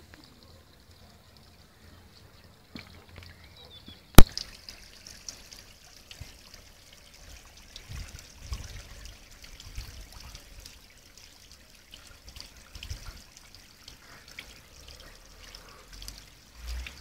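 Water trickling in a garden pond, a faint, even splashing with many small drips. A single sharp click about four seconds in is the loudest sound, and there are scattered dull low thumps later on.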